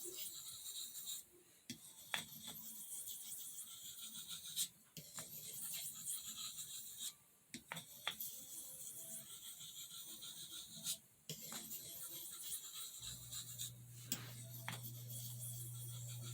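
Knife blade being drawn across an Arkansas whetstone with very light pressure to work the burr off the edge: a faint steady scraping hiss, broken by short pauses every few seconds. A low steady hum starts near the end.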